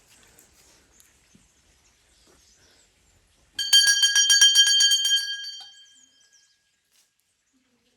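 Small shrine bell rung rapidly for about two seconds, a quick run of strikes over a steady ring that then fades away.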